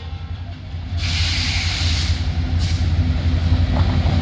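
Diesel-electric locomotive drawing a passenger train close past, its engine rumbling low and steady and getting louder as it nears. A loud hiss sounds from about one to two and a half seconds in.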